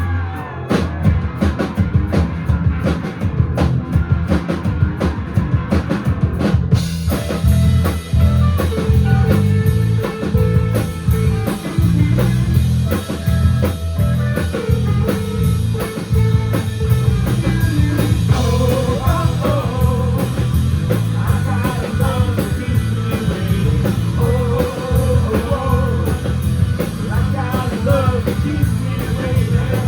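Live rock band playing, with drum kit, bass and electric guitars and a singing voice. Drums and bass lead for the first several seconds, then the full band with crashing cymbals comes in about seven seconds in.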